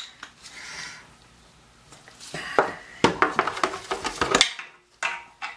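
Metal tool clinking and clicking on the fittings under a toilet tank as a nut is worked loose. After a quieter stretch, a quick run of sharp clicks comes about halfway through.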